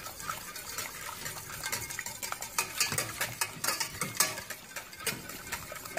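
Wire whisk beating fast in a stainless steel saucepan, its wires clicking and scraping against the pot in a quick, uneven rhythm. Beaten egg is being whisked rapidly into hot lemon syrup so that the egg does not cook.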